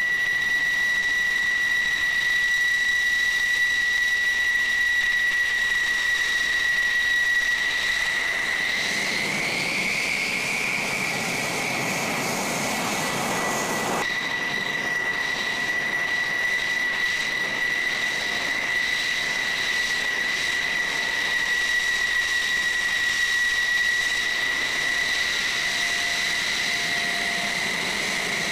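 F-16 fighter jet's turbofan engine at taxi power: a steady, high whine over a hiss. About nine seconds in, the whine rises slightly in pitch and a swell of rushing noise builds, then breaks off suddenly about fourteen seconds in, and the steady whine goes on.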